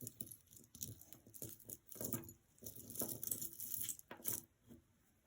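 Costume jewelry clicking and rattling as pieces are picked up and handled, a run of small irregular clinks with a sharp click near the end.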